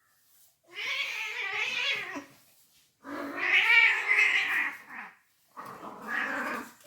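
Cat caterwauling: three long, drawn-out yowls with wavering pitch, the middle one loudest, the aggressive yowling of a cat fight or standoff.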